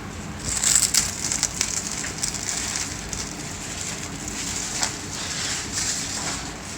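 Crinkling, crackling rustle of plant packaging being handled and pulled apart, in irregular bursts that are loudest about a second in.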